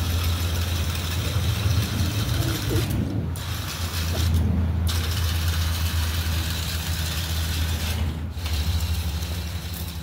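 Meccano model traction engine's motor and gear train running as it drives along pulling a loaded trailer: a steady whirring gear noise over a low hum. The higher whir drops away briefly three times.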